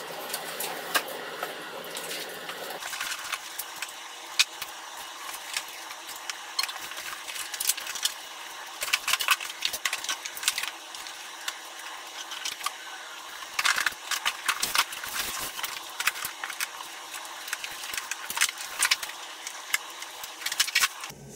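Unpacking a boxed cordless lawn mower: cardboard scraping and flapping, packing material crinkling and mower parts knocking, as a busy, irregular run of sharp rustles and clatters.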